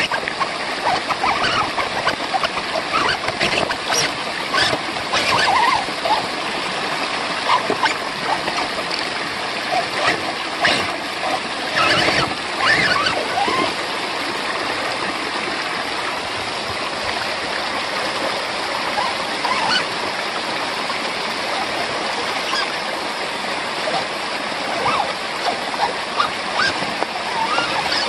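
Water rushing down a small rocky waterfall, with splashing as an RC rock crawler's tyres churn through the flow; a cluster of sharper splashes and knocks comes around the middle.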